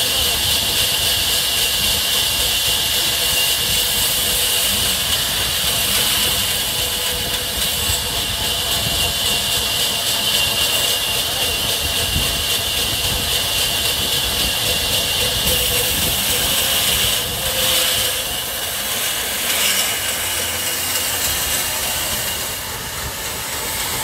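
Sawmill band saw cutting lengthwise through a large log: a steady hiss of the blade in the wood over the running machine, easing off slightly a couple of times near the end.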